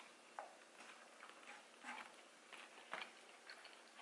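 Faint crunching and clicking of tortilla chips being chewed and picked from a foam takeout box: a few soft crunches about a second apart, against near silence.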